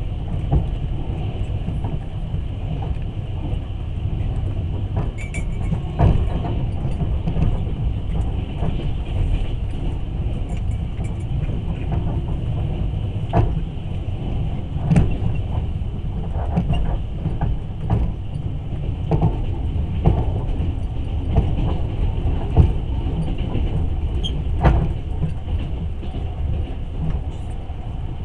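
Passenger train running on the rails, heard from inside the carriage: a steady low rumble with irregular knocks and clacks from the wheels and car body.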